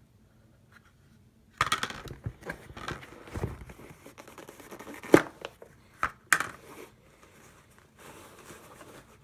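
Crinkling and rustling of shoe packing material as the stuffing inserts are pulled out of a pair of new shoes, starting about a second and a half in, with a few sharp clicks around the middle and a fainter rustle near the end.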